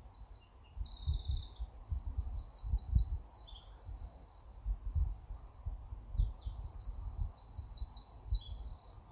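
Small woodland songbirds singing a busy run of high, rapid trills and twittering phrases. Low rumbling thumps on the microphone sound underneath, loudest about three and six seconds in.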